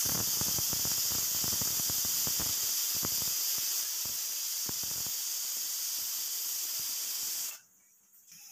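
Aluminium pressure cooker whistling: steam hisses out loudly and steadily past the weight valve on the lid, with a sputtering crackle over the first few seconds, the sign that the cooker has come up to pressure. The hiss cuts off abruptly about seven and a half seconds in.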